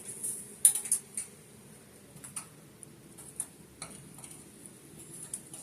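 A bird trapped inside a furnace's metal flue pipe, its claws scratching and tapping on the sheet metal as irregular sharp clicks. A quick cluster comes about a second in, then scattered single ticks.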